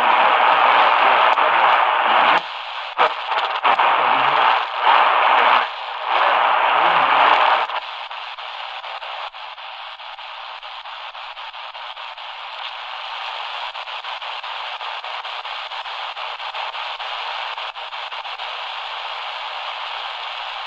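XHDATA D-328 shortwave radio being tuned across the band: loud, choppy static and fragments of signal cut in and out several times, then about eight seconds in it settles into a steady, quieter hiss of static between stations.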